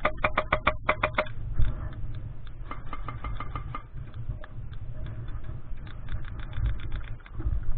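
Airsoft gun firing on full auto, a fast even string of shots of about eight a second that stops about a second in: suppressive fire to keep an opponent pinned. A second, fainter string of shots comes later.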